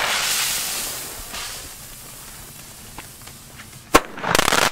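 Fuse of a Pyroland 'Detonation' cube firecracker hissing as it burns down, fading after about a second. About four seconds in comes one sharp loud bang, followed at once by a short, loud rush of noise as the firework throws out its contents.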